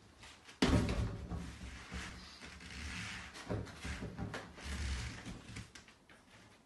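A sudden thump, then irregular rubbing and knocking as a person drops onto and shifts around on an inflatable exercise ball on a rubber gym floor.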